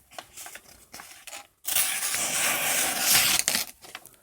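Smith & Wesson pocket knife blade slicing through a sheet of paper: a steady tearing hiss about two seconds long, starting about a second and a half in, after a few light handling noises.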